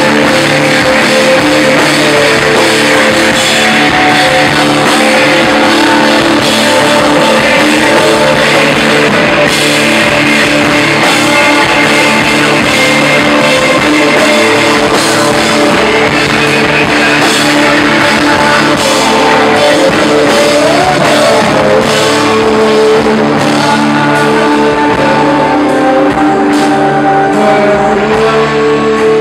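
Live grunge rock band playing loud: distorted electric guitar, including a Telecaster-style guitar, over a pounding drum kit, with sung vocals.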